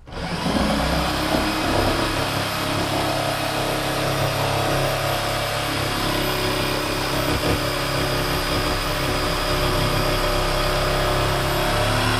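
Handheld electric power tool starting up and running steadily as it cuts into the top of a metal drum. A high motor whine climbs in pitch as it spins up and then holds steady.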